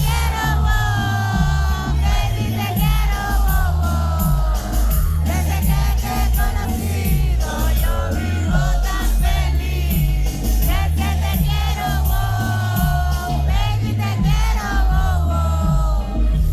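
Live reggaeton ballad played loud over a hall PA: a sung vocal line over a heavy, steady bass beat.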